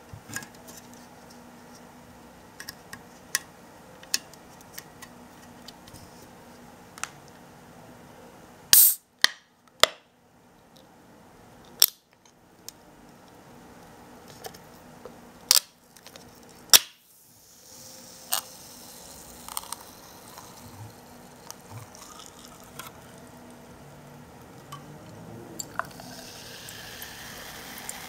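Light taps and clicks of fingers handling an aluminium Coca-Cola Zero Sugar Byte can, with a few sharp, louder clicks in the middle as the pull tab is worked. About two thirds of the way in the tab pops the can open, followed by a short fizz of carbonation. Near the end cola starts pouring into a glass, a fizzy filling sound that rises in pitch.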